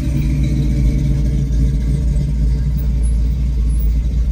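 Steady low rumble of car engines at walking pace, heard from inside a car's cabin.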